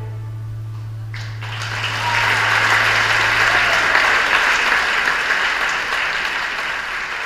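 Audience applause breaks out about a second in, swells and holds, with a low held tone underneath that dies away about four seconds in.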